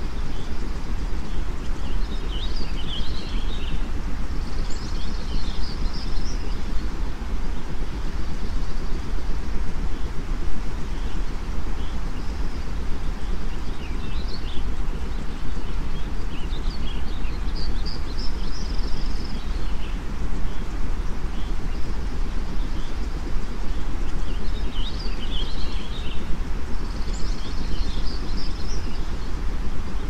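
A steady white-noise bed, heaviest in the deep low end, with bird chirping and twittering laid over it in short clusters every ten seconds or so.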